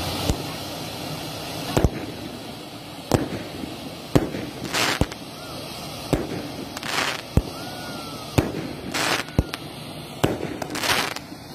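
Fireworks firing from the ground: sharp bangs about once a second, several of them stretched into louder bursts of about half a second.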